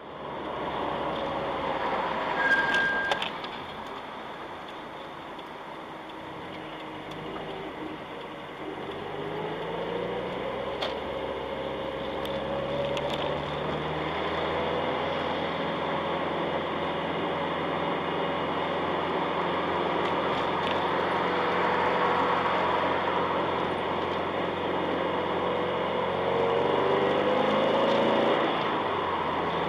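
A car driving in traffic, recorded from inside the cabin: steady engine and road noise, with the engine note rising twice as the car pulls away and picks up speed. A short beep sounds a couple of seconds in.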